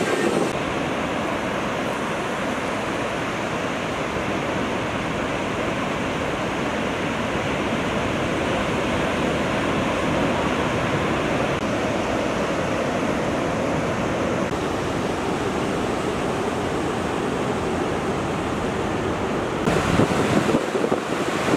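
Ocean surf breaking: a steady wash of waves and whitewater that grows louder and hissier near the end.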